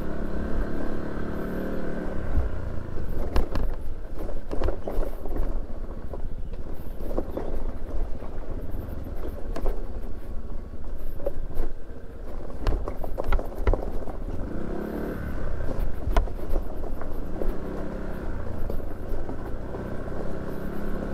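Motorcycle engine running as it is ridden along a rough track, with scattered knocks and rattles from the bumps.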